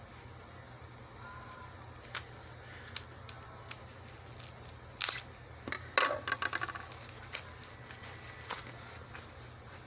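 Scattered light clicks, taps and crackling of packaging and small items being handled, busiest in the middle with a quick run of small clicks, over a steady low hum.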